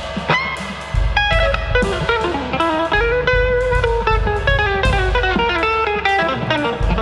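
Instrumental improvised music: an electric guitar plays a melodic line of picked notes, with one long held note in the middle that droops slightly in pitch, over drums.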